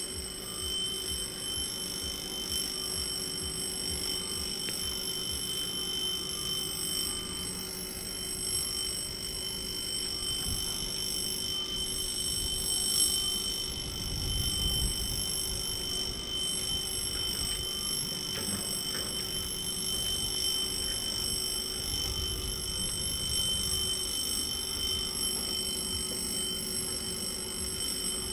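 Level-crossing warning signal ringing steadily and without a break, with a low rumble rising briefly about halfway through and again later.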